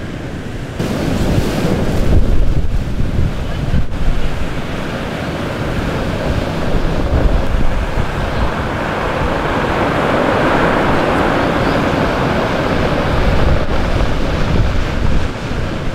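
Foamy surf washing and churning over rocks, with wind buffeting the microphone. It gets louder about a second in.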